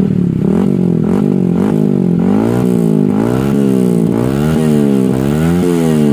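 Yamaha WR single-cylinder motorcycle engine breathing through its hollowed-out (bobok) stock muffler. It runs near idle at first, then is revved in repeated quick throttle blips about once a second.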